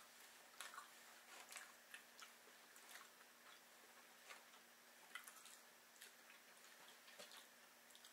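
Faint, irregular clicks of two people eating: chewing and forks picking at food in cardboard takeout boxes, over a faint steady hum.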